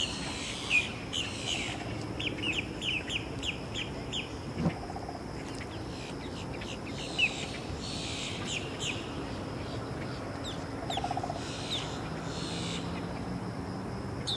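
Birds chirping in runs of quick, short notes, several times over, with a steady high insect drone behind them.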